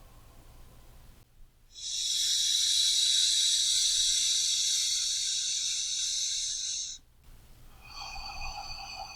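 A person breathing out slowly and deeply through the mouth, a loud airy rush that starts about two seconds in and lasts about five seconds, as part of a slow deep-breathing exercise. Near the end it is followed by a quieter, faintly whistling breath in through the nose.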